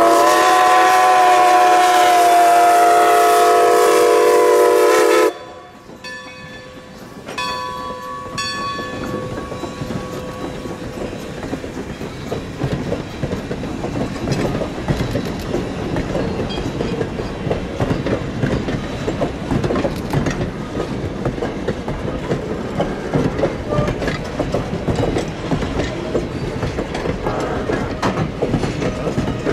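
A steam locomotive's Reading six-chime whistle sounds one long chord of several tones for about five seconds, then cuts off sharply. A bell rings a few times, and then the passenger coaches roll past with a steady rumble and their wheels clicking over the rail joints.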